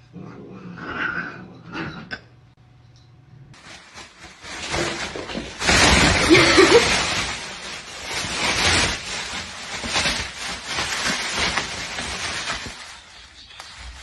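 A thin plastic carrier bag rustling and crinkling loudly as a cat climbs into it, starting about three and a half seconds in and loudest a few seconds later.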